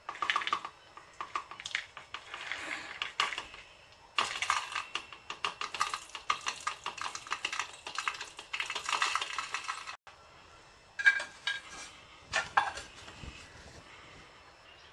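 Whole spices, mostly peppercorns, cumin and fennel seeds, poured from a plate into a stainless-steel mixer-grinder jar, pattering and rattling against the steel. The flow gets heavier about four seconds in, and there are a few separate clicks near the end.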